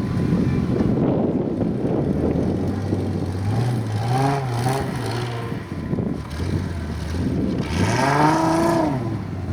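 Off-road trial vehicle's engine running under load with a rough, noisy sound. It is revved up and back down twice, briefly at about four seconds and more strongly at about eight seconds.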